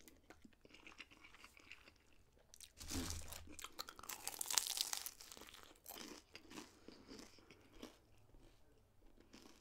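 Biting and chewing a fried vegetarian spring roll close to the microphone: the crisp pastry crunches loudest from about three seconds in, then settles into softer, scattered chewing crunches.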